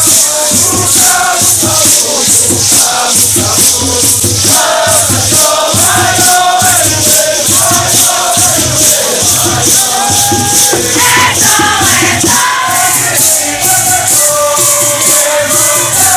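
Group singing and chanting with maracas shaken to a steady, even rhythm over a regular low beat.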